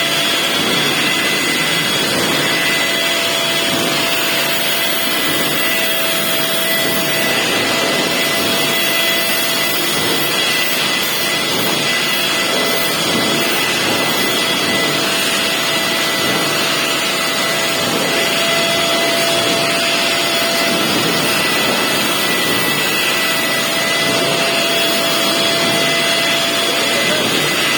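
A machine running steadily under a constant whine, with no pauses or changes in pitch.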